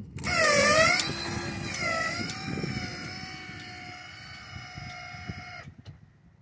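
Linear actuator motor whining as it raises a crossing gate arm. The pitch wavers and dips under the load at first, then holds steady while the sound slowly fades, and it stops suddenly near the end.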